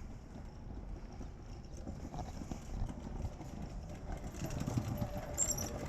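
Footsteps on paved ground with low rumble on the microphone. A faint steady whine joins in near the end.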